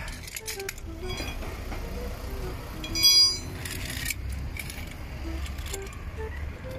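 Metal tools clinking and knocking, with a louder ringing metallic clank about three seconds in, over a steady low rumble.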